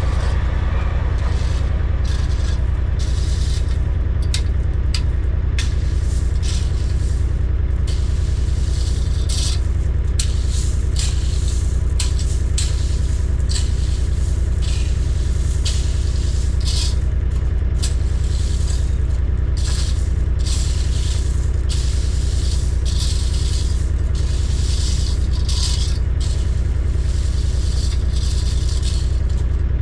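A heavy machine's engine running at a steady low drone, with repeated irregular scraping and rattling of gravel or stone over it.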